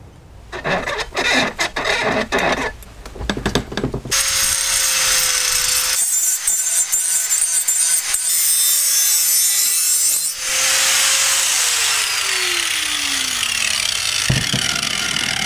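Electric angle grinder grinding the edge of a steel machete held in a bench vise: a steady high whine under a loud grinding hiss. It is then switched off, and the whine falls in pitch as the disc spins down, followed by a knock. Before the grinder starts there is a run of irregular rough strokes.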